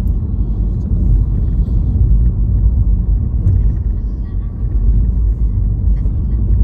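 Steady low road rumble inside a Volkswagen Jetta's cabin as the car drives along.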